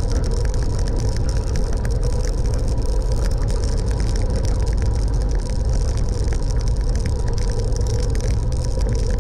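Steady rumble of wind and road noise recorded on the move during a ride, unbroken throughout, with small rattling clicks and a faint steady tone.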